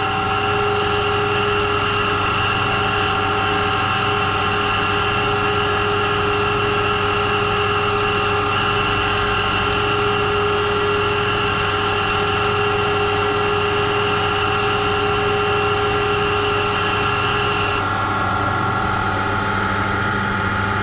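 Comec valve refacing machine running steadily while a Peugeot 205 GTI valve face is ground against its stone, a constant machine whine over a low motor hum. About eighteen seconds in the higher whine drops out suddenly and the low hum carries on.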